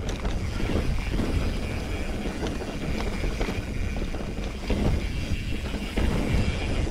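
Mountain bike riding over a rough trail: wind rushing over the microphone and tyres rolling, with frequent small knocks from the bike.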